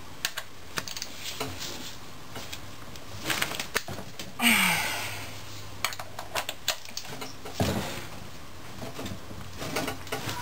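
Ratchet and socket wrench clicking in short irregular runs, with small metal tool clinks, as bolts are worked loose on a 4L80E transmission's reverse servo cover.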